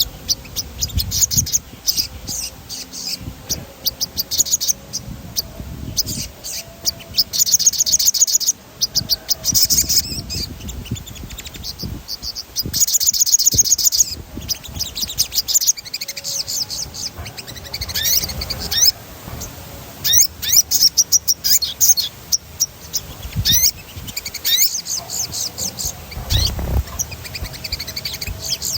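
Sogon (little spiderhunter) singing continuously, in rapid high trills and runs of quick downward-sweeping notes, coming in bursts of a second or two.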